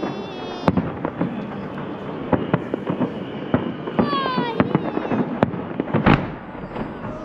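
Fireworks salute: a rapid, irregular series of sharp bangs from shells bursting overhead, with a heavier boom about six seconds in.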